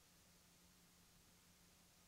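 Near silence: a faint steady hiss with a low steady hum, the blank recording's noise floor.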